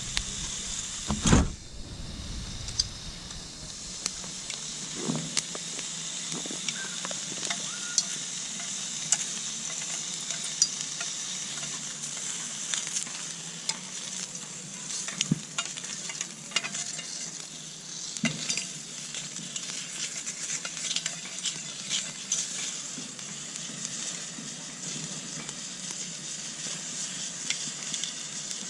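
Food sizzling in a frying pan over a camp stove or fire: a steady hiss with many small crackles and pops, and a sharp knock about a second in.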